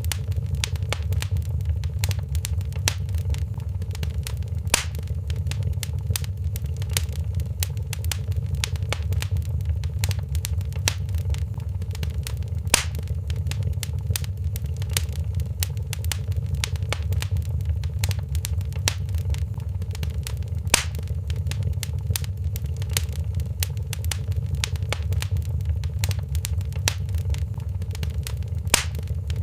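Wood fire crackling in a fireplace: a steady low rumble of flame under constant small crackles, with four louder pops spread through it.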